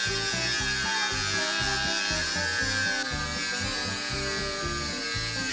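Angle grinder cutting through an aluminium spinnaker pole tube: a steady high whine whose pitch dips slightly as the disc bites. Background music with a stepping bass line plays under it.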